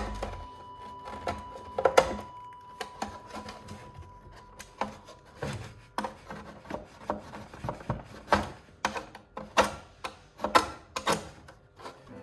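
Utility knife blade scraping and shaving excess material off a repaired plastic surface in short, irregular strokes, which come faster and louder in the second half.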